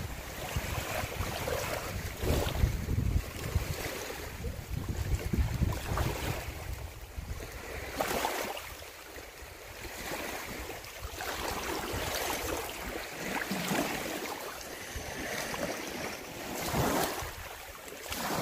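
Small wind-driven waves lapping and sloshing against a rocky lakeshore, with wind buffeting the microphone as a low rumble, heaviest in the first few seconds. A few louder sloshes of water come later, the last just before a splash as a snapping turtle is lifted out of the shallows.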